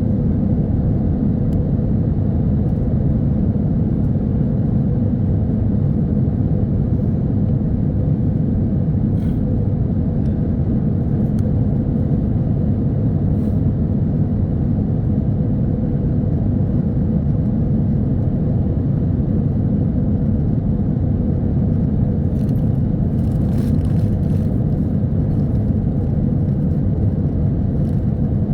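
Airliner cabin noise in flight: a steady low rumble of the engines and airflow, with a faint steady hum running through it.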